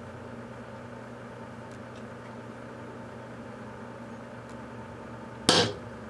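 Microwave oven running with a steady hum while watch batteries heat inside it, with a few faint ticks. Near the end one battery explodes with a single sharp bang that dies away quickly.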